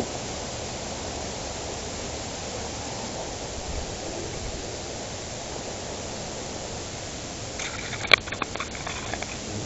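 Steady rushing outdoor noise, like wind on the microphone or running water. About eight seconds in comes a short cluster of sharp clicks, one loud crack followed by a few lighter ones.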